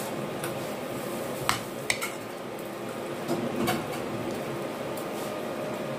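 Metal spoon and fork clinking and scraping against a ceramic plate while eating, with a few sharp clinks, the clearest about one and a half and two seconds in.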